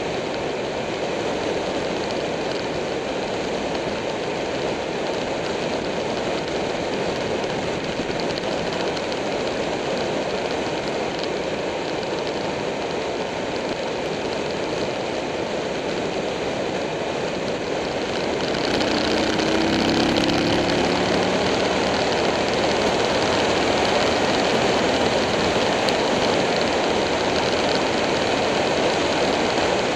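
Motorcycle riding at speed, heard from the moving bike: a steady rush of wind noise over the engine. A little past halfway the engine gets louder, with a short rise in pitch as the bike accelerates.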